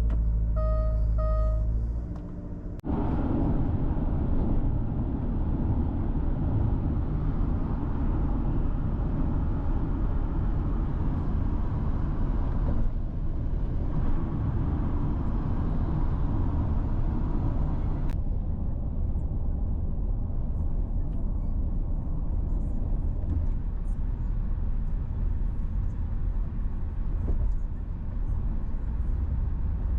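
Steady low rumble of a small ferry boat's engine running under way, starting about three seconds in after a few short beeps.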